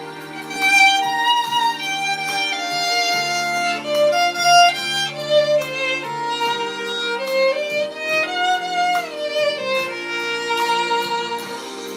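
Instrumental break in the song's backing music: a single lead melody line over sustained chords, with a pitch slide up and back down about two-thirds of the way through.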